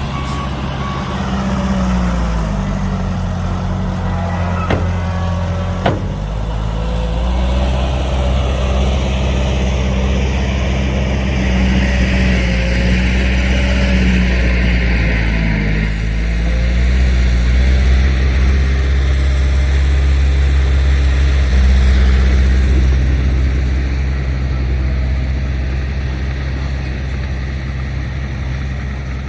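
Heavy engine of earthmoving machinery running loudly, its pitch dipping and rising several times as it is throttled up and down, with two sharp knocks about five and six seconds in.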